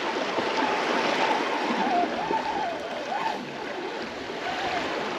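Sea water rushing and washing along the shore, a steady noise, with a faint wavering tone coming and going over it.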